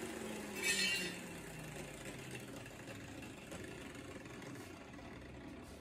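Handheld power grinder coasting down after being switched off, its motor hum falling slowly and steadily in pitch. A brief hiss or rattle comes under a second in.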